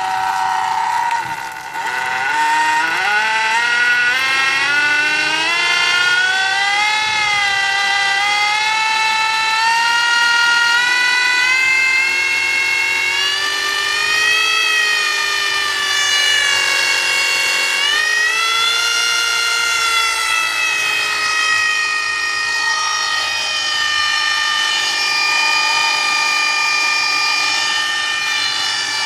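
Golden Motor 5 kW 48 V brushless electric motor spinning an outboard lower unit in neutral with no load, giving a high whine. The pitch climbs about two seconds in as it speeds up, then rises and falls as the throttle is varied.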